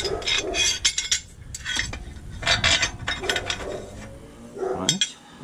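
Steel castor correction plates and their bolts clinking and scraping against each other and the radius arm mount as they are fitted by hand: a run of irregular metallic clinks and taps.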